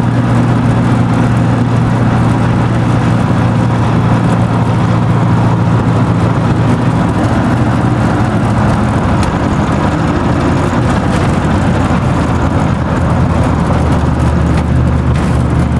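Car engine running steadily under way, its pitch dropping about fourteen seconds in as the car slows.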